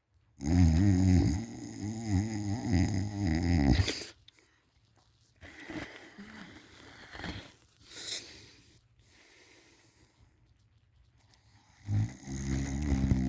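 A person snoring loudly in deep sleep, lying on their back. One long, low snore lasts about the first four seconds, then quieter breathing, then the next snore starts near the end.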